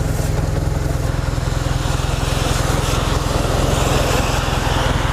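BMW R1200RT's boxer-twin engine running at low revs with an even, low firing beat, under a steady hiss.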